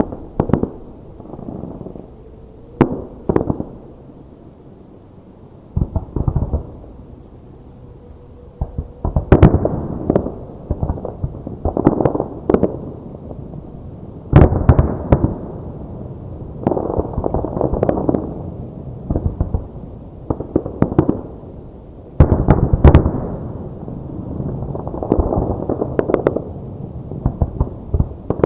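Aerial fireworks bursting in a rapid series of sharp bangs, mixed with dense crackling and echoing booms. The loudest salvos come about a third of the way in, at the middle and past the three-quarter mark.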